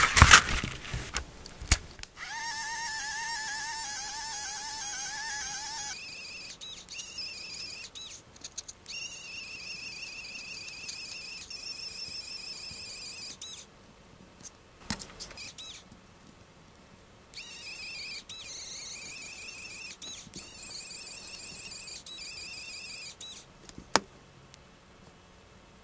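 A 3D pen's filament feed motor running in stretches of several seconds with a wavering high-pitched whine, stopping and starting again as it pushes PLA filament through. It opens with a loud clatter of handling as the filament is fed in, and a few sharp clicks fall in the pauses.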